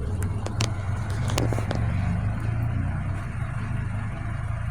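A car engine idling with a steady low hum, and a few light clicks in the first second and a half.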